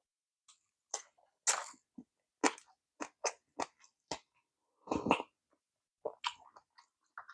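Close-miked chewing of sushi: quick, irregular wet mouth smacks and clicks. About five seconds in comes a longer sip from a cup of instant soup, followed by more chewing clicks.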